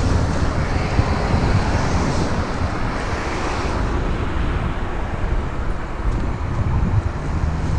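Steady rushing noise of wind on the microphone mixed with outdoor vehicle and traffic noise, over a constant low hum.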